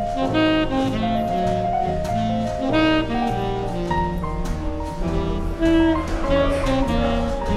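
Background jazz music led by a saxophone, with a bass line moving note by note underneath.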